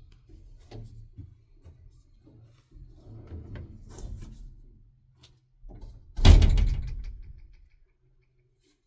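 Handling noises and light knocks, then one loud bang about six seconds in, a door or lid banging, that rings off over about a second and a half.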